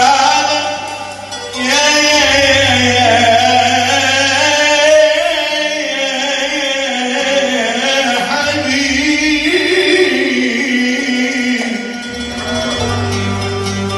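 Male singer in Arabic tarab style, amplified through a microphone, holding long, wavering notes with slides in pitch over electronic keyboard accompaniment with a steady bass line.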